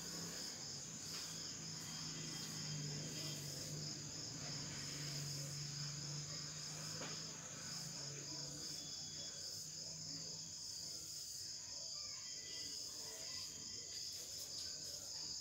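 Crickets chirping: a steady, high-pitched pulsing trill, with a faint low hum underneath that stops about ten seconds in.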